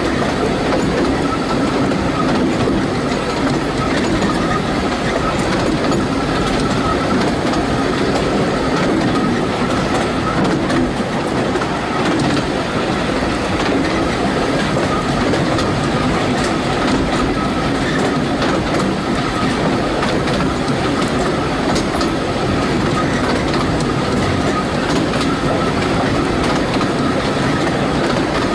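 Narrow-gauge railway carriage running along the track, heard through an open window: a steady rumble of wheels on rail with scattered clicks from the rail joints and a thin steady whine above it.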